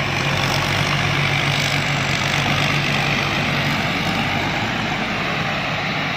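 Rice combine harvester running steadily: a low engine hum with a rushing noise over it. The low hum weakens about four seconds in.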